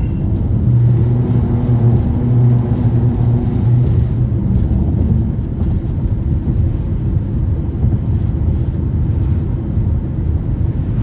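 Steady low rumble of a moving car's road and engine noise, with a low hum standing out from about one to four seconds in.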